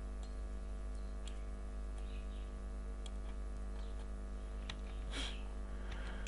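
Steady electrical hum from the recording setup, with a few faint clicks of a computer mouse scattered through it and a short soft hiss about five seconds in.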